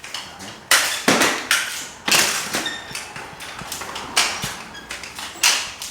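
Drywall finishing tools scraping and swishing against plasterboard joints: several short, sharp scrapes about a second apart, with no steady machine sound.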